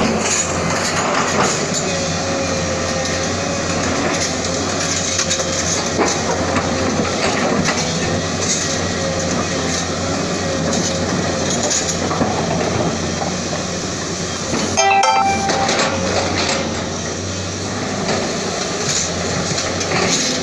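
SANY SY210C excavator's diesel engine running steadily under working load, with scattered clanks and knocks as the bucket works among broken rock. A brief high tone sounds about fifteen seconds in.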